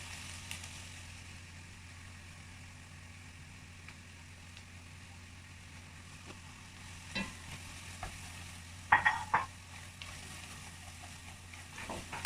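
Food sizzling in a cooking pot, with a few short clatters of a utensil against the pot, the loudest a little past halfway. A steady low hum runs underneath.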